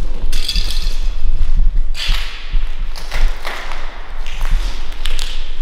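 Footsteps and scuffs across a debris-strewn floor, with scattered taps and knocks and a constant low rumble of handling on the microphone.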